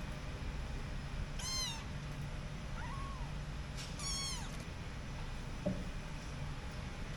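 Kitten mewing: three short, high-pitched mews, each rising then falling in pitch, the middle one fainter.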